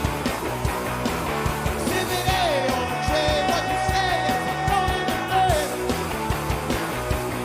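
Live garage punk rock band playing loud, with drums beating steadily under distorted instruments and a voice holding long notes that slide in pitch.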